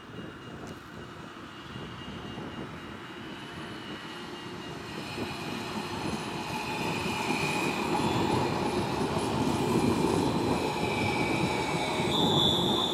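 RET Alstom Citadis tram approaching and passing close by: wheels rumbling on the rails under a steady high electric whine from its traction drive, growing louder as it nears. The whine steps up in pitch near the end.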